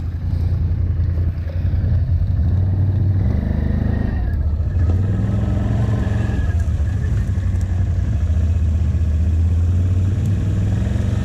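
Can-Am Outlander ATV engine running steadily close by, its engine speed shifting slightly now and then.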